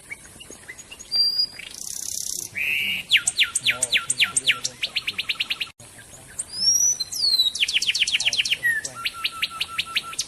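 Songbird singing loud, rapid trills of fast downward-sweeping whistled notes that speed up, in two phrases with a short break near the middle. A brief harsh rasp comes about two seconds in.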